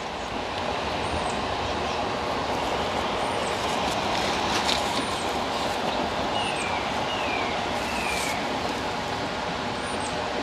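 Steady rush of creek water pouring through a tailwater below a dam. About two thirds of the way in, a hawk gives three short descending cries in quick succession.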